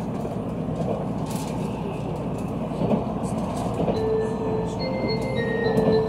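Running noise of a Tokaido Shinkansen bullet train heard from inside the passenger cabin: a steady rumble of wheels on rail. Thin high tones come in about two-thirds of the way through.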